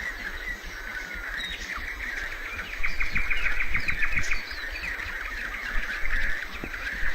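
Small birds chirping, with a rapid trill a few seconds in.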